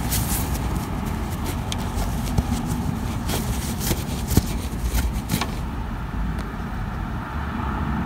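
Cloth rag rubbing and wiping dirt off the grease fitting under a mower deck, with a few sharp knocks and clicks partway through, over a steady low background rumble.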